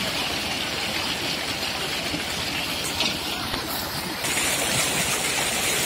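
HMT 4022 tractor's diesel engine running under load as it pulls a loaded sugarcane trolley, with a steady hiss over it.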